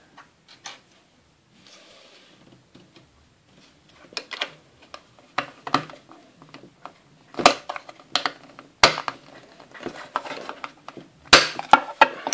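Hard plastic toy parts clicking and knocking as a cover piece is handled and pressed onto a Playmobil jet ski: an irregular scatter of sharp clicks, the loudest few in the second half.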